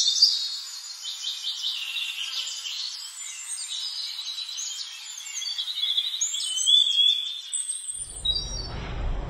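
Birds chirping and twittering in quick, varied calls over a steady high insect trill. About eight seconds in, a low rushing noise comes in under them.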